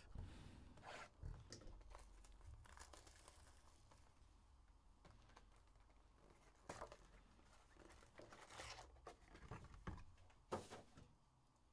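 Faint tearing and crinkling as a Donruss Basketball hobby box is torn open and its foil-wrapped packs are pulled out and stacked, a few short crinkles spread through, the sharpest near the end.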